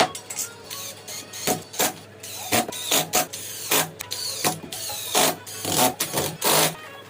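Irregular mechanical knocks, clicks and scraping, with a few short squeaky glides, like tool and hardware handling.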